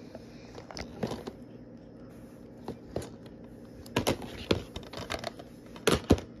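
A series of sharp, irregularly spaced clicks and taps, about a dozen, coming in small clusters, with the loudest pair near the end.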